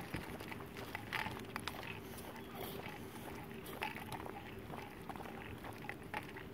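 A golden retriever panting as it walks, with scattered light clicks.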